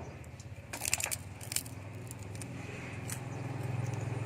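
A few sharp clicks and rattles about a second in, over a low engine hum from a vehicle that grows louder toward the end.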